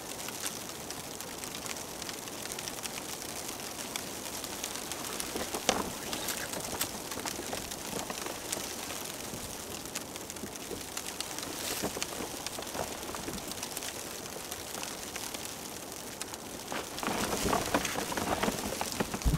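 Steady crackling patter of falling snow, with a louder stretch of rustling near the end as paracord is pulled and tied around the boot.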